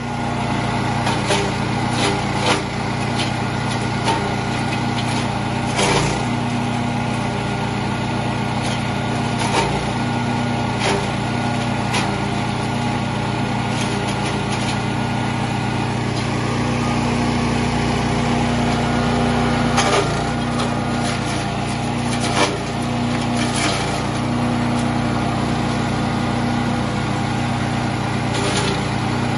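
TK100WC chipper/shredder running steadily under engine power, with scattered sharp cracks and knocks every few seconds.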